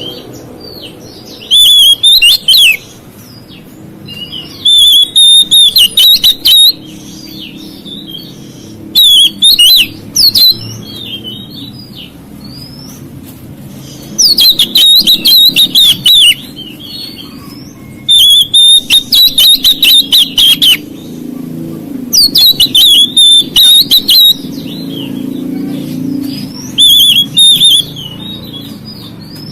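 Oriental magpie-robin (kacer) singing loud bursts of rapid, quickly bending notes, about seven phrases a few seconds apart, over a steady low hum. The song is the kind used to provoke other magpie-robins into singing.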